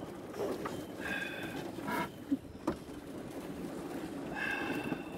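Steady noise of a small boat under way on a river, with two short, high, flat tones about three seconds apart.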